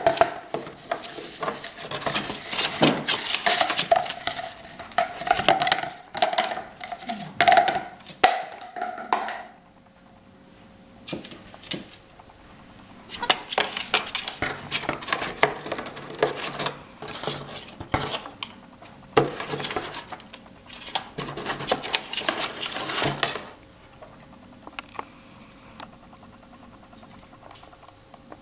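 African grey parrot chewing, tearing and scratching at cardboard inside a cardboard box: dense crackling and clicking in two long stretches with a short quieter gap between, then only scattered faint clicks near the end.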